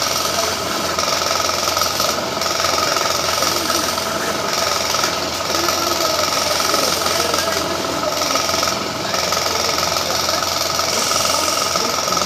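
Wood lathe running while a hand-held turning chisel cuts into a spinning wooden baluster: a steady motor hum under the scraping of the cut, which eases off for a moment several times as the tool is shifted.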